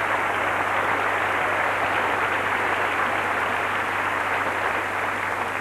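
Large theatre audience applauding, a dense steady clapping that begins to die down near the end.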